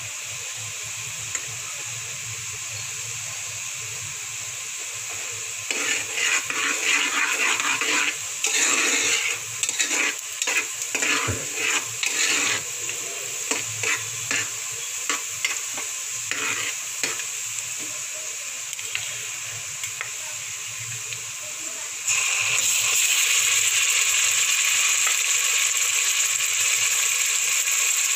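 Chopped onion sizzling in oil in an aluminium pressure cooker. A steel spoon scrapes and stirs it against the pan in irregular strokes for about ten seconds in the middle. About three quarters of the way through, the sizzle suddenly turns louder and stays so.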